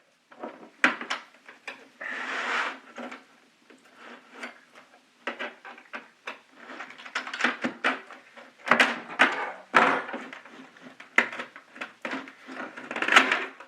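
Plastic keyboard case being worked and pulled apart by hand: a string of irregular clicks and knocks of hard plastic, with a brief scrape about two seconds in.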